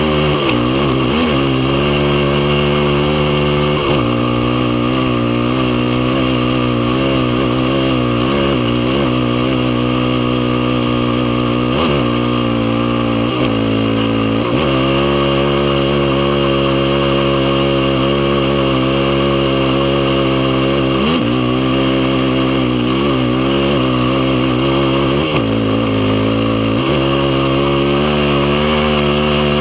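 Sport quad's single-cylinder four-stroke engine, heard from on board, working hard across and up sand dunes. The revs rise and fall continuously and drop sharply several times as the throttle is lifted or a gear is changed.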